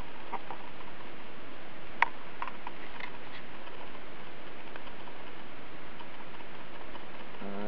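Steady hiss with scattered light clicks and taps, the sharpest about two seconds in: handling noise while a ruler is read against the water level in a bowl.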